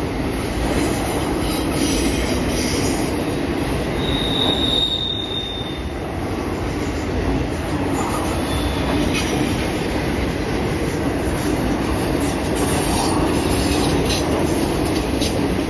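CN freight train of autorack cars rolling past on curved track: steady rumble of steel wheels on rail, with a brief high-pitched wheel squeal about four seconds in and fainter squeals later.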